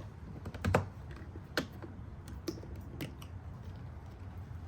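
A few sharp clicks and taps, the first the loudest, of hand tools and small metal parts being handled, over a low steady hum.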